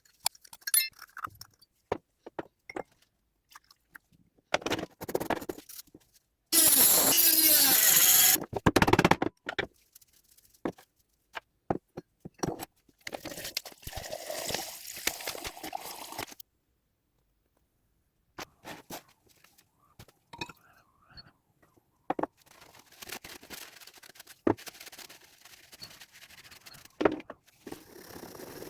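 Hand work on an old metal bell under restoration: scattered scrapes, clinks and knocks. About six and a half seconds in comes a loud, hissing burst lasting about two seconds, and there are quieter stretches of steady scraping or rubbing later on.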